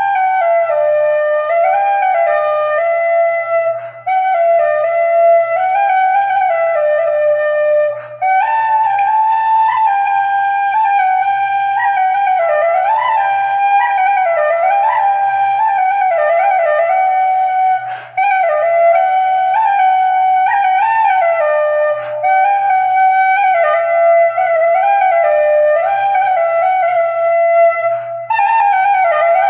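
Celtic flute playing a slow solo melody in phrases, with short breaks between them, over a faint steady low hum.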